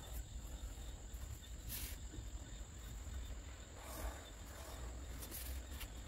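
Quiet background noise: a steady faint high-pitched whine over a low hum, with a few soft brief rustles.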